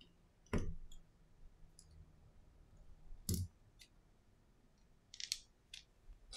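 Clicks and taps of iPhone parts being handled on a silicone repair mat. There are two firmer knocks with a dull thump, about half a second and three seconds in, and a quick cluster of light clicks near the end.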